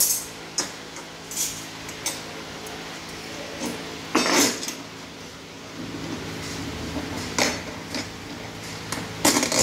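Steel parts clinking and clanking irregularly as a plastic platform trolley is assembled: a spanner working the bolts and steel handle brackets being handled and set down on the platform. About eight separate clinks, the loudest and longest a little after four seconds in, over a steady low hum.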